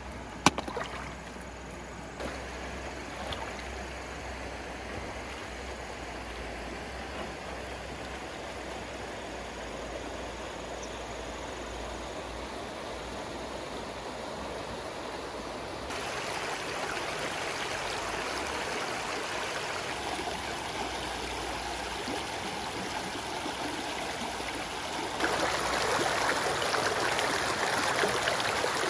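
Shallow stream water running steadily over rocks. It gets louder in two steps, about halfway through and again near the end. One sharp knock comes just after the start.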